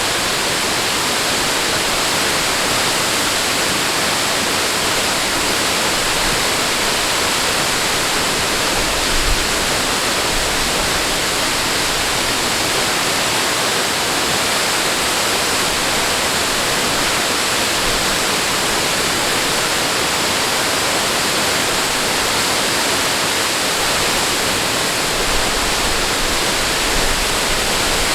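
Steady rushing water, an even, unbroken rush with no waves or breaks.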